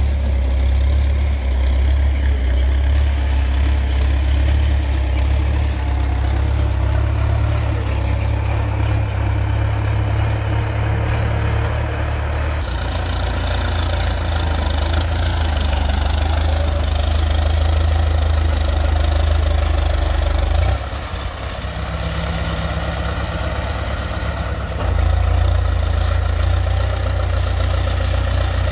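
Diesel engine of heavy road-building machinery running steadily with a deep rumble, easing off for a few seconds in the second half before picking up again.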